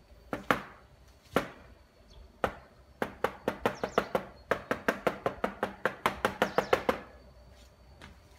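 A hand knocking on an AOC LCD monitor: a few separate knocks, then a quick even run of about four knocks a second for some four seconds.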